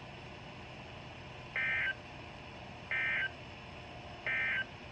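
Three short bursts of Emergency Alert System SAME data tones over weather-radio hiss, each a harsh warbling screech about half a second long and about a second and a half apart. Bursts this short are the end-of-message (NNNN) code that closes an alert.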